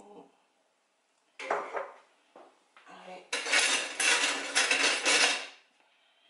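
Kitchen utensils clattering and scraping against dishes. There is a short burst of it about a second and a half in, then a dense run of rapid scraping and clinking lasting about two seconds.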